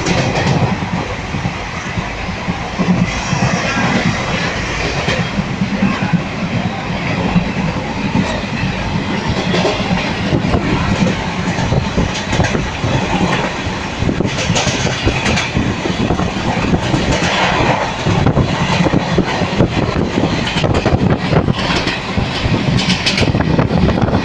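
Train running, with continuous rumble and irregular wheel clatter and knocks.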